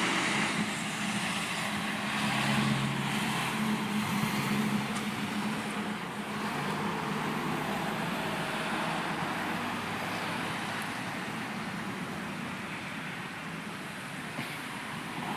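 Road traffic noise with the steady hum of a vehicle engine running, swelling now and then as vehicles go by.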